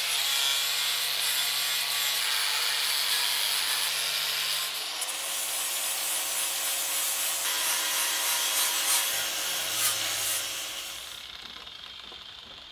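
Angle grinder grinding a rough cast-iron vise casting: a steady high abrasive hiss over the motor's whine. It fades out over the last couple of seconds.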